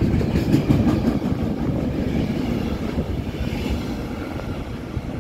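Train passing on the railway line, its wheels rumbling on the rails with a few clacks near the start, the noise slowly fading as it moves away.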